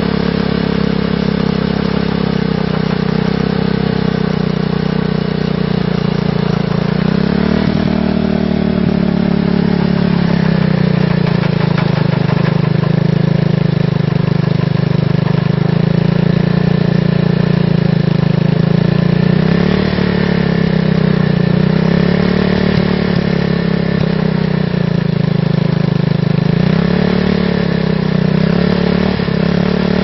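Yamaha Warrior 350 ATV engine, an air-cooled single-cylinder four-stroke, running steadily on its first run. Its speed rises a little about a third of the way in, then settles and wavers slightly near the end.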